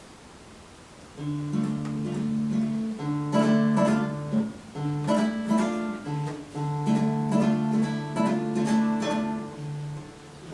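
Acoustic guitar playing the introduction to a song, strummed and plucked chords starting about a second in.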